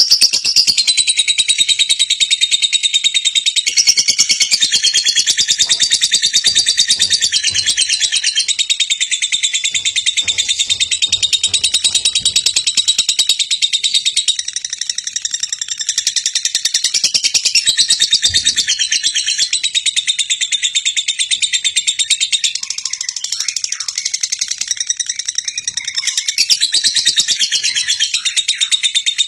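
Lovebird chattering in one long, unbroken run of rapid, high-pitched chirps.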